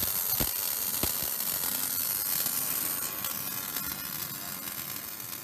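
A steady hiss with a faint buzz, slowly fading out, with two soft clicks about half a second and a second in.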